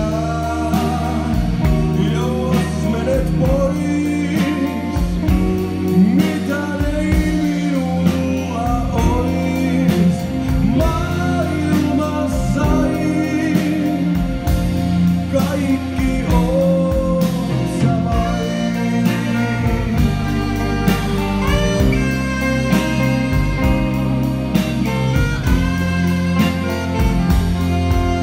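A live blues-rock band playing, with electric guitar, bass and drums and a lead melody line over them.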